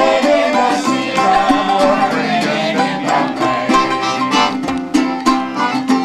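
Folk tune picked on a banjo, the notes coming in a quick, steady rhythm.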